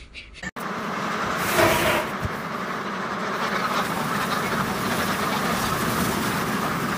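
A large flock of domestic ducks moving together: a dense, steady din of many ducks quacking at once, cutting in suddenly about half a second in.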